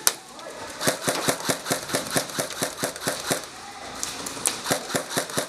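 Airsoft guns firing in quick runs of sharp snaps, about six or seven a second, with a single louder crack at the start and a short pause about three and a half seconds in.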